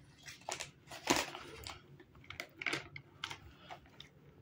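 A cat chewing crunchy Dreamies treats, a quick irregular run of small crunches and clicks.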